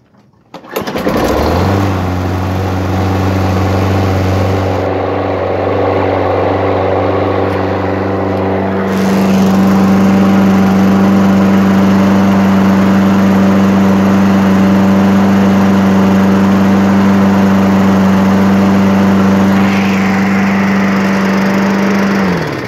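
Tecumseh LEV120 four-stroke engine on a walk-behind lawn mower catching and coming up to speed, then running steadily at about 2,850–2,880 RPM, below its specified 2,950 ± 150 RPM. Just before the end it is shut off and winds down.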